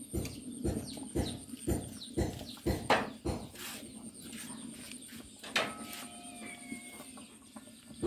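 Chickens clucking, a string of short clucks, with one longer held call about five and a half seconds in.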